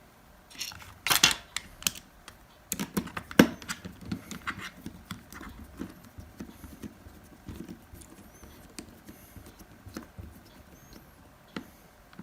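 Small clicks and taps of a screwdriver and plastic phone parts as the Nokia 6150's housing is screwed together, a few louder knocks early on and then a run of lighter ticks.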